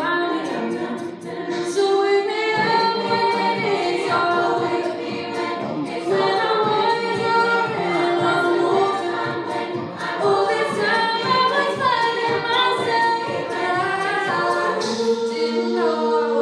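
Student a cappella choir singing in harmony, several voice parts with no instruments, settling into a held chord near the end.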